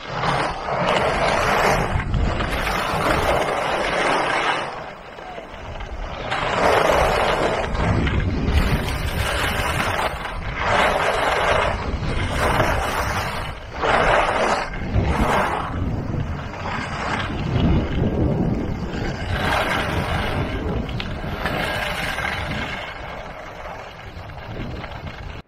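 Skis hissing and scraping over packed snow during a downhill run, swelling several times with the turns, over a steady rumble of wind on the microphone.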